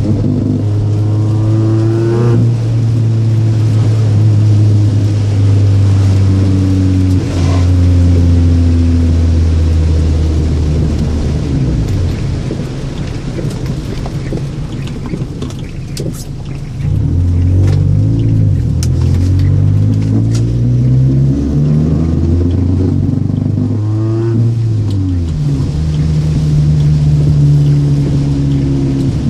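Seventh-generation Toyota Celica being driven, its engine note rising and falling several times as it pulls away and changes gear. About halfway through, while the engine is quieter, a few sharp knocks come through, in a car whose owner reports a loud knock in the wet and wonders whether the aftermarket exhaust is to blame.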